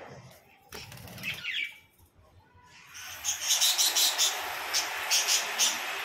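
Budgerigar taking off from a balcony railing, wings flapping, with a short chirp about a second in. From about three seconds a steady hiss comes up, with a quick run of sharp, high budgie chirps.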